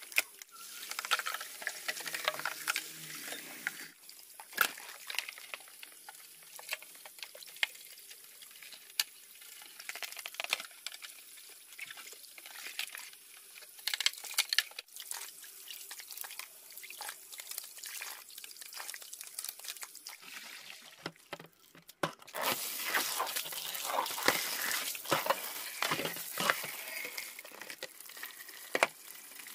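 Water splashing with wet scrubbing and many small clicks and crackles, louder and denser about three-quarters of the way in.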